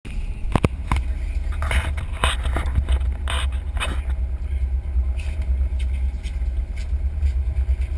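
Knocks and scrapes of the action camera being handled against its mount during the first four seconds, over a steady low rumble on the boat.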